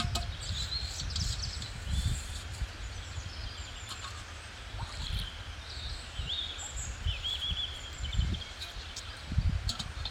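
Small birds chirping in short, bending whistled notes over a low, uneven rumble of wind on the microphone, which swells about two seconds in and again near the end.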